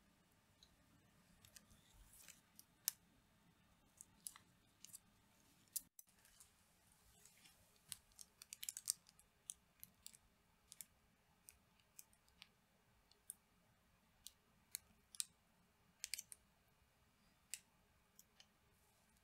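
Near silence with faint, irregular clicks and ticks, a busier cluster about eight seconds in, from a plastic piping bag of melted white chocolate being handled and squeezed.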